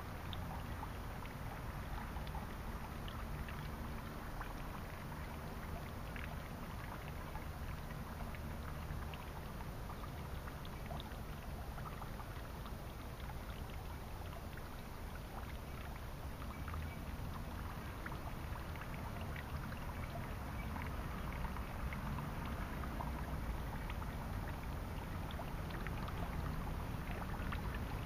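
Suikinkutsu: faint, irregular ringing drips of water falling into a buried upturned jar beneath a stone basin, over a steady low rumble. It grows a little louder in the last few seconds.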